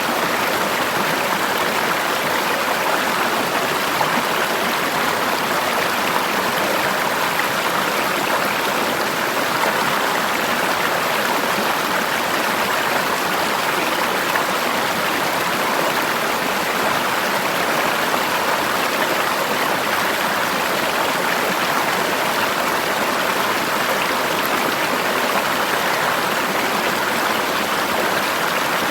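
River water flowing over rocks in a forest stream, a steady rushing with no change in level.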